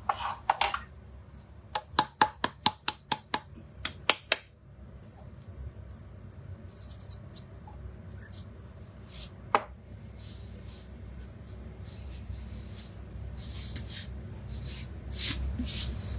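Kitchen handling noises at a cooking machine: a quick run of about ten sharp taps or clicks in a little over two seconds, then soft rustling and a single knock.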